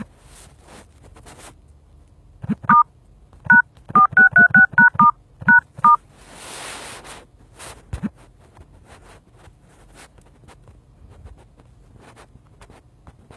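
Phone dialer keypad tones (DTMF): about eleven quick two-note beeps over some three seconds as a service code is keyed in, each with a light tap. A short hiss follows.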